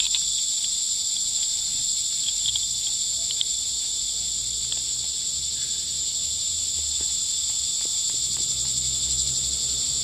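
A steady, high-pitched chorus of insects, crickets or cicadas, buzzing without a break. A few faint clicks come from the aluminium belt buckle being handled.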